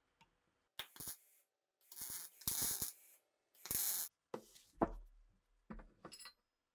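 MIG welder laying short tack welds on a steel rifle receiver: about seven separate bursts of arc noise, each under a second long, with short pauses between them.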